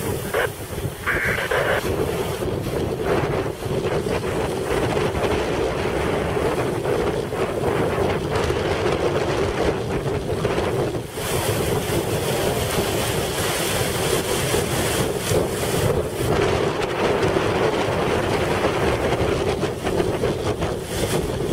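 Wind buffeting the microphone over the wash of small breaking waves around sea kayaks in the surf, a steady rushing noise.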